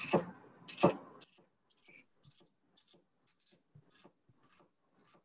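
Chef's knife slicing celery on a wooden cutting board: two firm chops in the first second, then a string of much fainter, quicker taps.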